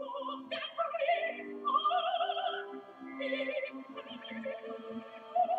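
Background music: an operatic voice sings held notes with a wide vibrato over sustained lower accompaniment.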